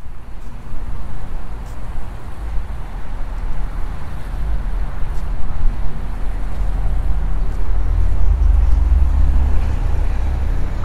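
Wind buffeting the microphone of a handheld phone on an outdoor walk: a low, choppy rumble with a faint hiss over it, growing stronger near the end.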